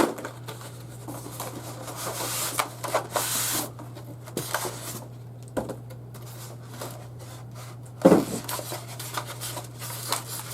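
Cardboard and plastic packaging being handled and opened: rustling, rubbing and small clicks, with a louder thump about eight seconds in.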